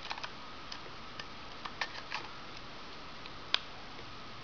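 Small plastic clicks and taps of a battery being slid into the battery compartment of a Panasonic Lumix DMC-ZS3 compact camera, with one sharp, louder click about three and a half seconds in as the battery door snaps shut.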